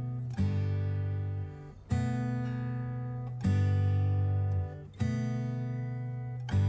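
Background music: an acoustic guitar strumming sustained chords, a fresh strum about every one and a half seconds.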